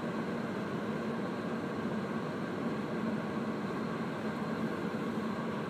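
Steady rushing of a truck's heater blower fan running on high, with the engine's low running hum beneath it, heard inside the cab.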